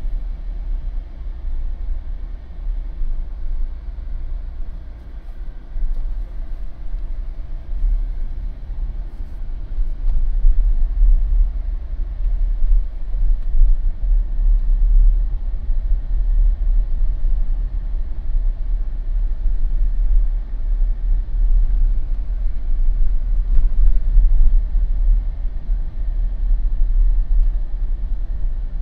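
Low rumble of a Jeep driving slowly along a residential street: tyre and road noise with the engine underneath, a little louder from about ten seconds in.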